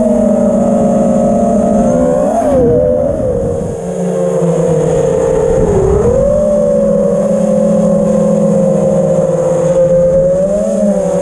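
Dingo 6 FPV quadcopter's brushless motors and propellers whining, heard from the onboard camera. The pitch holds steady with brief bends up and down as the throttle changes, and the level dips for a moment about four seconds in.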